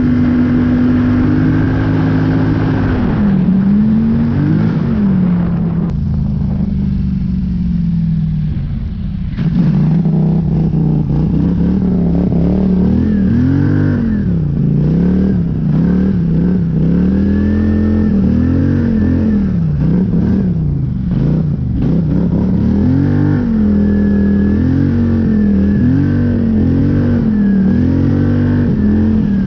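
Polaris Scrambler 850 ATV's twin-cylinder engine pulling through deep snow, its revs rising and falling over and over. It eases off briefly about eight seconds in, then picks up again.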